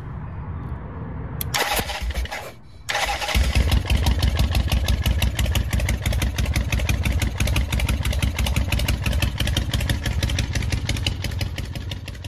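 Motorcycle engine starting: a low rumble, a short noisy burst about one and a half seconds in, then the engine catches about three seconds in and runs loud and steady with a rapid, even beat.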